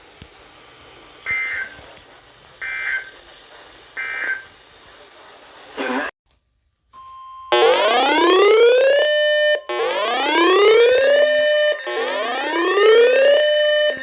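Emergency Alert System end-of-message data bursts: three short, shrill two-tone digital chirps about 1.4 s apart over a faint hiss, marking the end of the warning. After a short silence, a loud electronic whooping alarm starts about halfway through, a rising tone repeated about every two seconds.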